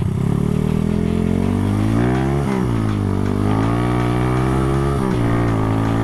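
Modified Honda CB single-cylinder four-stroke motorcycle engine (long 70 mm stroke, 65 mm piston) accelerating hard. The revs climb, drop sharply at an upshift about two and a half seconds in, climb again, and drop at a second upshift about five seconds in.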